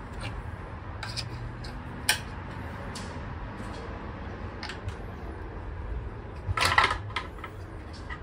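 Scattered clicks and light knocks of a plastic seat-bolster piece being worked off a car seat's metal frame by hand, with a louder clatter about six and a half seconds in.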